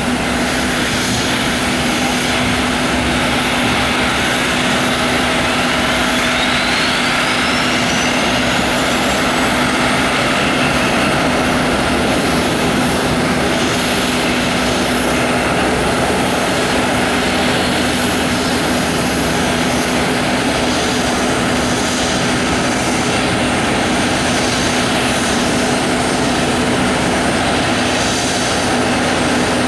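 Steady jet engine noise from airliners on an airport apron, with a steady low hum underneath. A thin whine rises in pitch from about four to ten seconds in.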